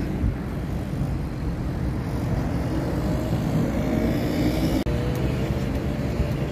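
Quad bikes (ATVs) running on a sand track, heard as a steady engine drone, with a faint pitched whine coming in about three seconds in, over a low rumble of wind on the microphone.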